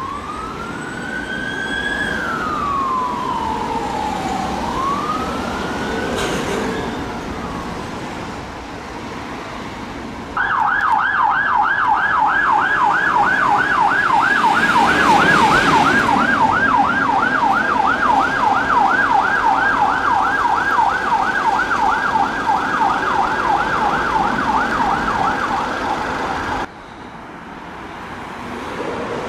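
Emergency-vehicle sirens over road traffic. First a police car's wail rises and falls slowly over several seconds. Then, from about a third of the way in, an ambulance's fast yelp siren warbles rapidly and evenly, and it cuts off sharply near the end.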